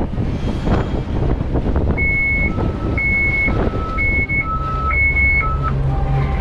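Marine VHF radio sounding a two-tone distress alarm, alternating high and low tones about twice a second, starting about two seconds in, over wind and sea noise. It is the sign of a distress call being raised on channel 16.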